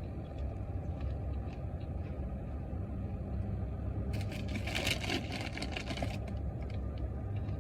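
Steady low engine hum as heard inside a car. A couple of seconds of crackling rustle come in just past the middle.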